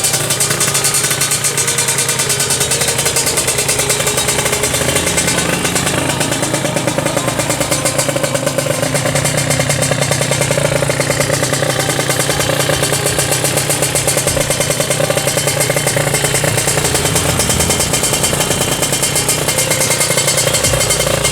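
Two-stroke single-cylinder engine of a Kawasaki Ninja 155 open-class drag bike running loudly and steadily, a rapid, even buzz of firing pulses.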